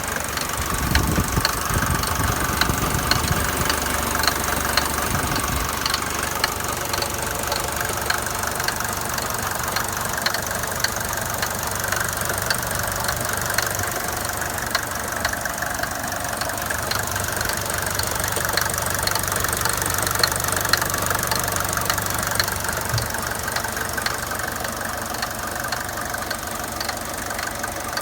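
Mercedes-Benz W124 200D's four-cylinder diesel engine running steadily with a regular, repeating knock, a noise whose cause the owner does not know.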